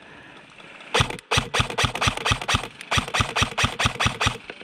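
Airsoft rifle firing a rapid string of about twenty shots, roughly six a second, each a sharp crack with a low thump. It starts about a second in and stops shortly before the end.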